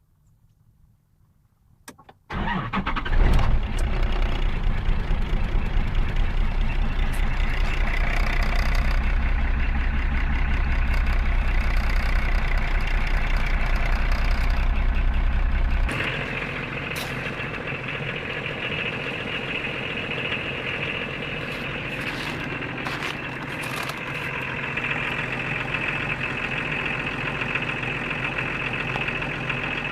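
Diesel car engine cold-started in extreme frost. It catches about two seconds in and then runs with a loud, rapid clatter. About halfway through the deep rumble drops away and a higher-pitched clatter takes over as it keeps running.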